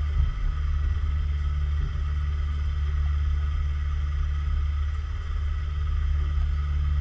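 A boat motor running steadily: a low rumble with a faint, even whine above it.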